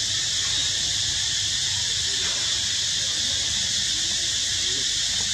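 Steady, high-pitched drone of an insect chorus, unbroken and unchanging.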